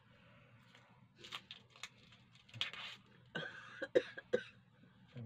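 A person coughing in short bursts, loudest in a cluster of several quick coughs in the second half.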